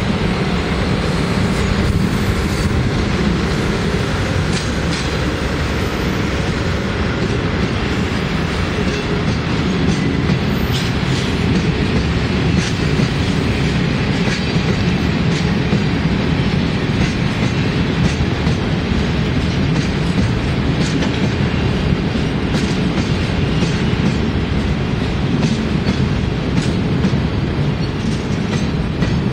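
DD51 diesel-hydraulic locomotive passing close by, followed by a long train of cement tank wagons rolling past with their wheels clacking over the rail joints.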